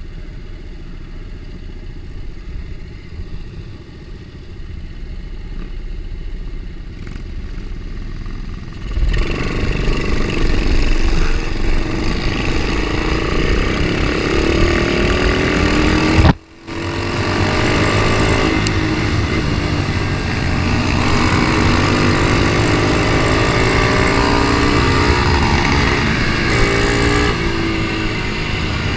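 Ohvale mini GP motorcycles' small single-cylinder four-stroke engines running low on the grid, then revving hard together as the pack launches at about nine seconds, their pitch climbing in repeated sweeps as they accelerate. The sound cuts out sharply for a moment at about sixteen seconds, then the engines carry on at high revs.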